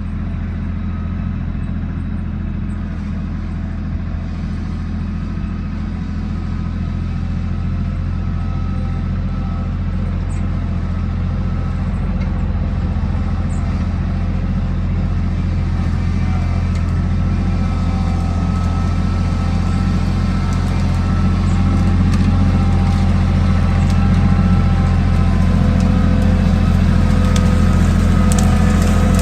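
Engine of a farm vehicle running steadily at a constant speed, with a low steady drone that slowly grows louder.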